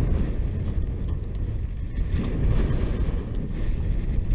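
Wind buffeting the microphone over the wash of water around a small fishing boat: a steady low rumble.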